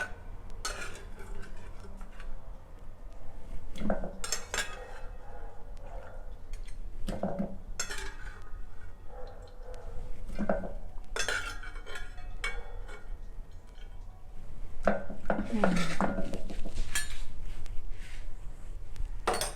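Metal pots and a serving spoon clattering and knocking irregularly as washed smoked pork is lifted out of hot water and moved into another vessel, over a steady low hum.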